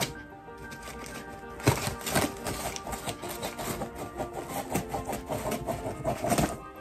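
Scissors cutting through packing tape on a cardboard box: scattered snips and scrapes, the sharpest about a second and a half in. Background music plays underneath.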